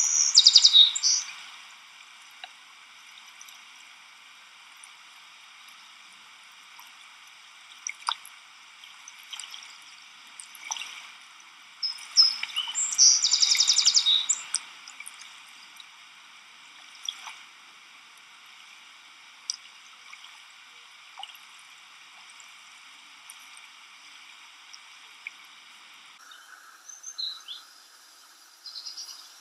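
Outdoor nature ambience: a steady insect chorus with birds calling over it, a burst of loud chirps at the start and a rapid trill lasting about two seconds around the middle.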